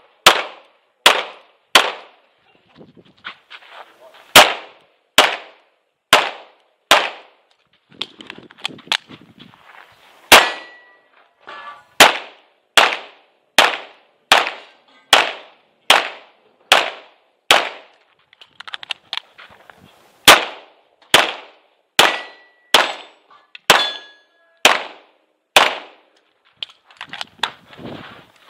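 Tanfoglio Stock 2 Xtreme 9mm pistol firing 115-grain factory ammunition in a long string of single shots, mostly less than a second apart, with a few pauses of two to three seconds between groups.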